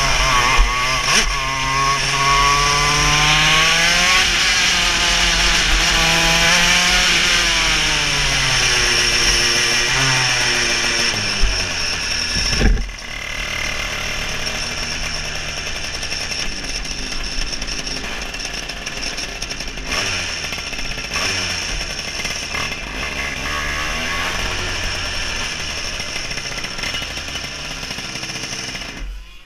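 KZ 125 shifter kart's 125 cc two-stroke engine at high revs, its pitch rising and falling over and over as the kart takes corners. About 13 seconds in there is a sharp knock and the engine drops to a lower, rougher running at low speed.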